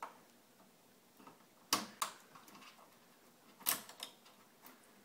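Sharp plastic clicks and light knocks from hands working the cable connectors and circuit boards inside an opened LCD TV, in two close pairs, the loudest nearly two seconds in and again near four seconds.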